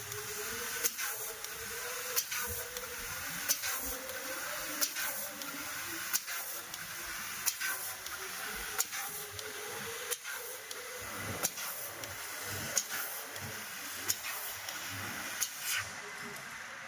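CNC laser pipe cutter cutting 50 mm square stainless steel pipe: a steady hiss, with a sharp click about every 1.3 seconds.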